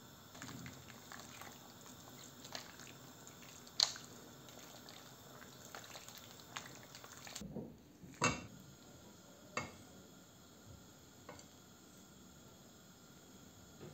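A spoon stirring a thick yogurt mixture with pasta shells and minced meat in a stainless steel pot, with a few sharp taps of utensils against the cookware.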